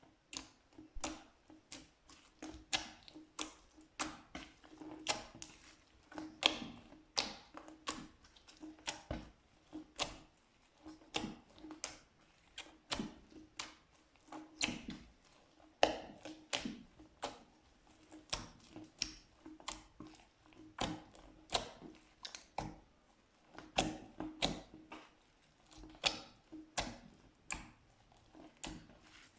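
Slime being squeezed and worked by hand, giving a quick irregular run of wet clicks and pops, several a second, over a faint steady hum.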